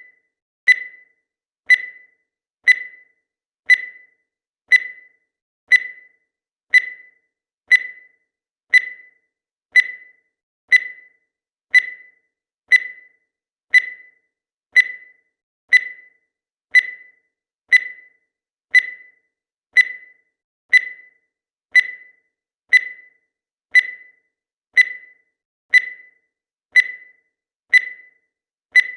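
Countdown timer sound effect: a short, sharp, high-pitched tick that rings briefly, repeating evenly about once a second.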